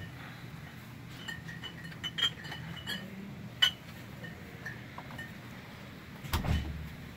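Several light metallic clinks and clicks over a steady low hum, the sharpest click about three and a half seconds in, then a dull thump a little after six seconds.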